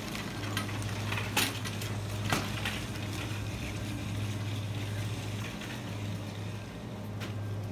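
Store background noise: a steady low hum with a few sharp clicks and light rattles, two of them about one and a half and two and a half seconds in.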